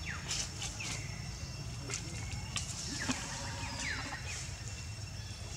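Faint animal calls: short high chirps and quick falling squeaks, scattered through a few seconds over a steady low rumble of outdoor background noise.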